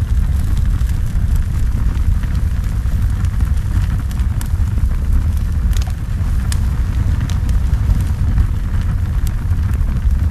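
A large fire burning: a loud, steady low rumble with scattered sharp crackles.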